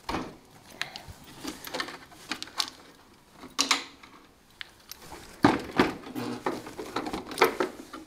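Irregular knocks, clacks and scrapes of a plastic-cased battery being set down and shifted about in a ride-on mower's battery tray, with cables being moved. The loudest knock comes about five and a half seconds in.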